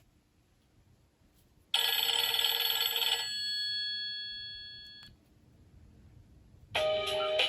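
Nokia N91 ringtones played through the phone's loudspeaker. About two seconds in, a short, dense, bright ring sounds for about a second and a half, and a few of its tones fade out over the next two seconds. Near the end another ringtone begins with quick repeated notes.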